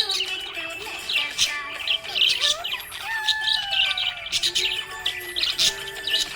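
Budgerigars chirping: quick, high chirps repeated over and over, with a longer, slowly falling whistled note about three seconds in.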